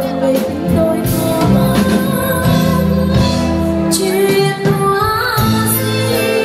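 A woman singing live into a handheld microphone, backed by a band with a drum kit. Her sung line holds long notes with vibrato.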